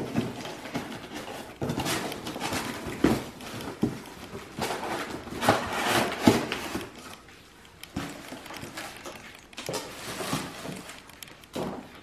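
Cardboard and plastic packaging rustling, with irregular knocks, as a blender is unpacked from its box.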